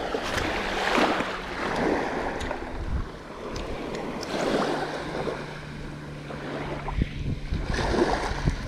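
Small waves washing and surging against shoreline rocks, rising and falling about once a second, with wind on the microphone.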